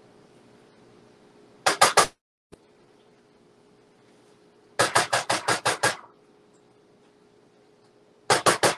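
Three runs of quick, sharp knocks, the middle run the longest. They come from an upturned plastic frosting tub being knocked against a metal saucepan to get the frosting out.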